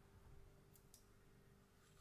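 Near silence: quiet room tone with a faint steady hum and two faint, short clicks just under a second in.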